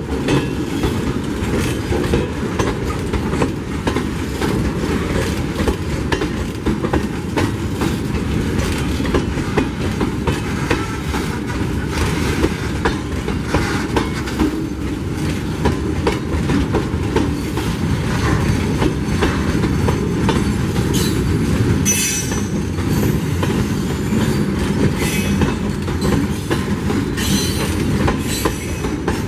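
Loaded mineral hopper wagons of a long freight train rolling past close by: a steady, loud rumble of steel wheels on the rails, with a few brief high-pitched wheel screeches in the last third.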